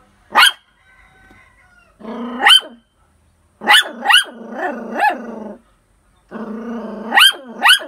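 A poodle barking in bursts: a single sharp bark, another, then a run of four and a closing pair. A lower drawn-out sound leads into several of the barks.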